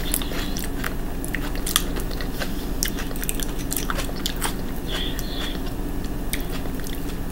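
Close-up mouth sounds of someone eating: chewing with many sharp, wet clicks and lip-smacks, over a steady low hum.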